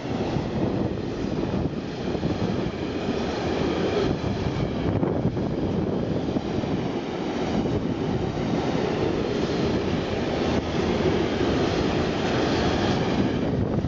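Intermodal freight train passing close by, its wagons loaded with road trailers: a steady noise of wheels rolling on the rails.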